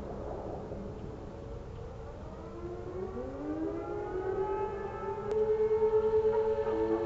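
Several outdoor warning sirens (tornado sirens) winding up together, their overlapping tones rising in pitch from about three seconds in and growing louder near the end: the start of the steady alert signal in a weekly siren test.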